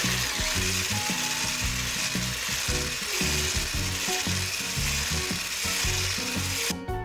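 Electric hand blender's whisk attachment whirring steadily as it beats eggs with powdered sugar in a glass bowl, stopping just before the end, with background music underneath.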